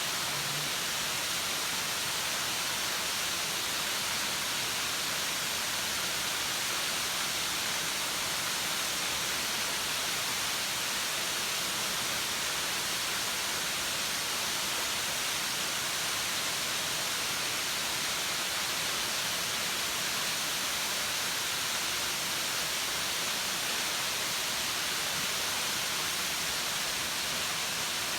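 Risco waterfall's water falling and splashing into its pool: a constant, steady rush with no pauses.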